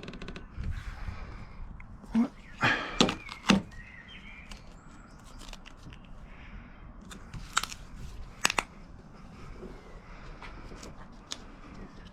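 A handful of short sharp knocks and clicks from hand work on the van: a cluster of about four between two and four seconds in, and two more around eight seconds in.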